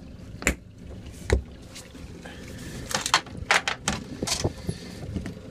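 Sharp clicks and knocks of deck hatch latches and a hatch lid being handled: two single clicks early, then a clatter of several knocks about three to four seconds in.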